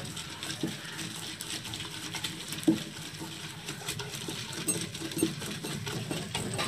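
Soaked yellow split lentils being crushed by hand on a flat stone grinding slab (ammi) under a stone roller: an irregular gritty scraping and crunching with small clicks, a sharper click about two and a half seconds in. The lentils are being ground coarsely for vada batter.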